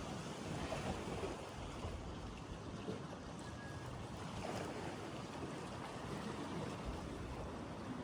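Steady rain and lapping lake water: an even hiss with no distinct events.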